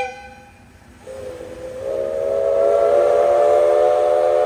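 Steam whistle of a JNR Class D51 steam locomotive sounding one long blast as the train sets off: a chord of several close tones that rises slightly at the start, holds, then cuts off near the end. The tail of an earlier whistle blast dies away at the very start.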